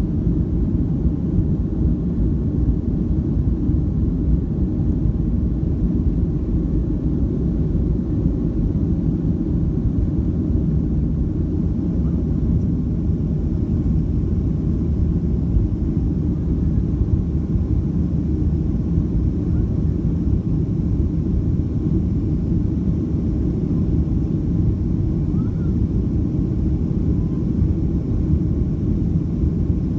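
Boeing 737-700 with CFM56-7B engines at takeoff thrust, heard inside the cabin over the wing: a steady low rumble through the takeoff roll, liftoff and initial climb.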